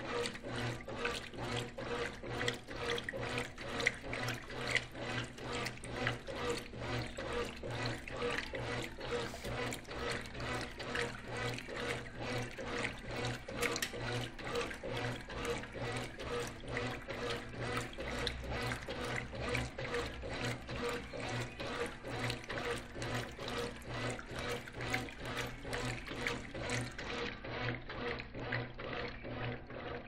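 Brastemp Clean top-load washing machine in its wash-agitation phase: water sloshing and splashing in a steady back-and-forth rhythm as the agitator swishes a load of duvets, over a low, steady motor hum.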